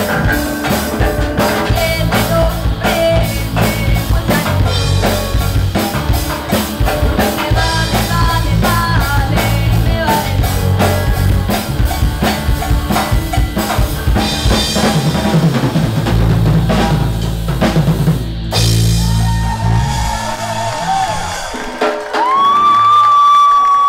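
Live rock band playing: a drum kit driving steady beats under electric guitars and a female lead singer. Near the end the drums and low end drop away and the song finishes on a long held note.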